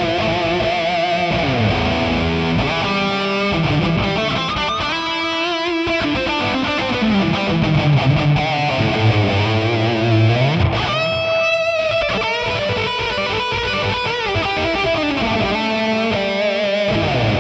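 Distorted electric guitar playing a lead line: sustained notes with vibrato and long slides down and up in pitch.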